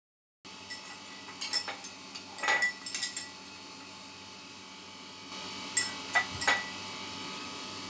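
Light clinks of kitchenware, a few at a time, in two short clusters, over a faint steady hiss; the sound starts abruptly about half a second in.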